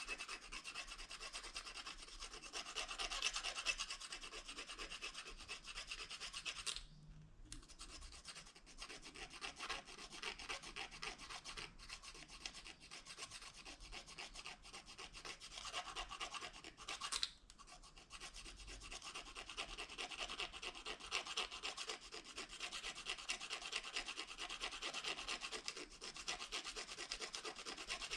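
Plastic fork rubbed rapidly back and forth along the edge of a plastic spoon: a continuous rasping scrape of plastic on plastic, broken by two short pauses, about a quarter of the way through and again a little past the middle.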